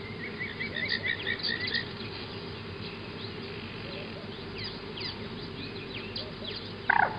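Birds chirping, with a quick run of repeated notes in the first two seconds and scattered short falling chirps, over the steady buzz of a flying insect. A brief, louder call sounds near the end.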